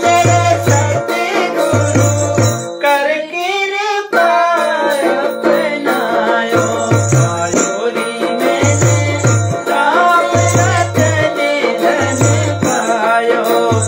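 Devotional bhajan sung by a man and a woman over a two-headed hand drum (dholak) played with the hands in a steady rhythm, with a jingling rattle. The drum drops out for a couple of seconds about three seconds in while the voice slides in pitch, then comes back.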